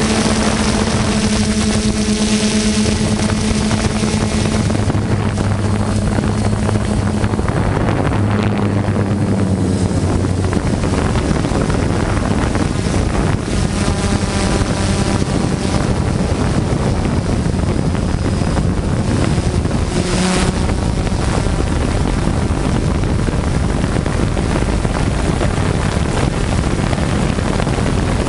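DJI F550 hexacopter's six motors and propellers droning steadily, heard from its own onboard camera, with wind rushing over the microphone; the hum shifts in pitch now and then as the craft slowly descends in an auto-land set off by battery trouble.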